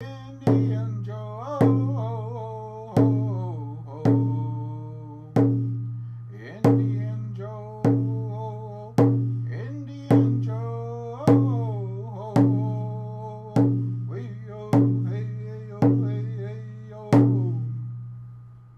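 Music with a slow, steady, deep drum beat, about one hit a second, and a pitched melody line over it, fading out near the end.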